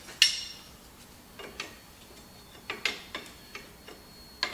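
Wrench clicking and clinking against the steel hydraulic hose fittings on a skid steer's lift cylinder as the lines are loosened. The sharp metallic clicks come at irregular intervals, the loudest just after the start, and some ring briefly.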